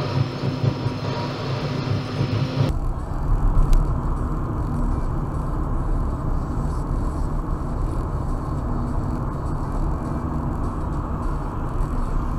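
Car driving at around 30 to 40 mph, heard from inside the cabin: a steady rumble of engine and tyre road noise. The sound changes abruptly about three seconds in, from a brighter hum to a duller, even rumble.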